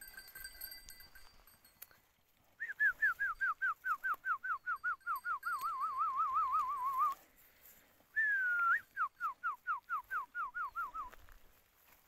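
A person whistling to call livestock: a quick run of downward-sliding whistles, about four a second, that turns into a wavering warble. After a short pause comes a second run, which opens with one longer slide.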